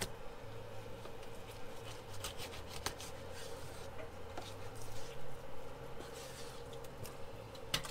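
Fillet knife working through a thick golden tilefish fillet on a cleaning table: soft slicing and rubbing with a few light taps, over a faint steady hum.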